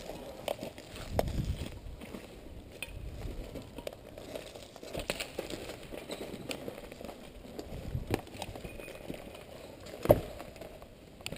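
Footsteps on rubble and debris with gear rustling against the body-worn camera, a run of small irregular clicks and knocks. One sharper knock stands out about ten seconds in.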